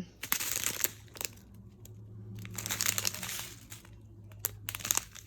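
Small plastic bags of diamond-painting drills crinkling as they are handled, in two stretches of rustling with a few sharp clicks and crackles between them.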